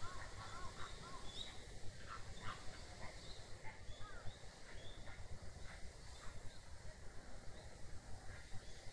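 Small birds chirping in short, scattered calls, most of them in the first few seconds, over a steady low rumble.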